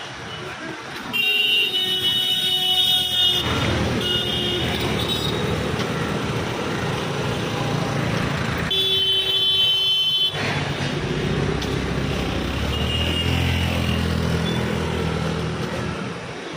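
Street traffic with vehicle engines running, and a vehicle horn held in two long blasts: one about a second in and another near ten seconds in.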